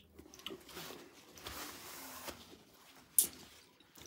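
Faint rubbing and rustling of a paper towel wiping spilled hot sauce off a tabletop, with one sharp click about three seconds in.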